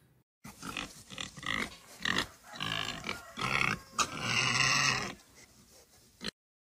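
Pig grunting sound effect: a run of short grunts, then one longer call about four seconds in, cutting off suddenly near the end.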